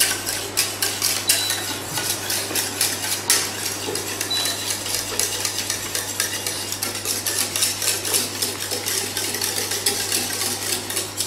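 Wire whisk beating a thick shallot butter sauce in a stainless-steel saucepan, its wires clicking rapidly and continuously against the pan's sides and bottom.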